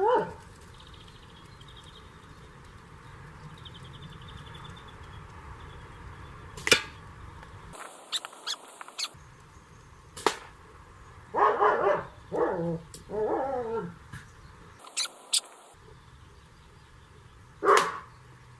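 A dog whining and yelping in several pitched, gliding calls, clustered in the middle, with a rising call at the very start. Three sharp cracks stand apart from them, a slingshot ball striking the target.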